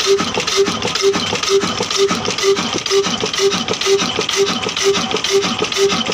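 Old 22 HP, 275 RPM 'Kala' single-cylinder diesel engine running at a slow, steady speed, its exhaust beating about twice a second with lighter mechanical knocks between the beats.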